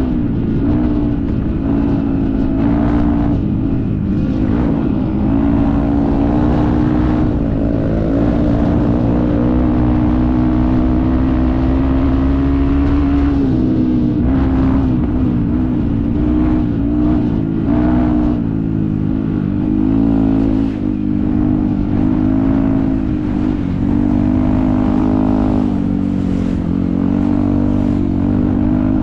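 Yamaha WR155 dirt bike's single-cylinder engine running hard off-road. Its pitch dips and climbs back several times as the throttle is eased and reopened.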